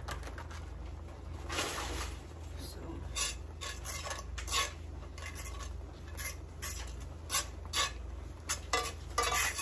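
A metal fork stirring instant mashed potato in a cast-iron skillet, scraping and clinking against the pan in irregular strokes.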